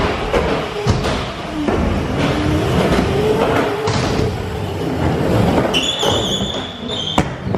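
Razor Crazy Cart electric drift cart driving hard: its small wheels rumble over concrete and a plywood ramp, with a faint wavering motor hum. Near the end comes a high squeal lasting over a second, then a single sharp knock.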